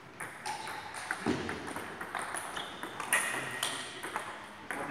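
Table tennis balls clicking off paddles and bouncing on the tables, a quick irregular run of hits from several tables in play at once.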